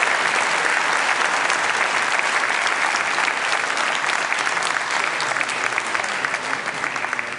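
Large audience applauding, the clapping thinning out and fading toward the end.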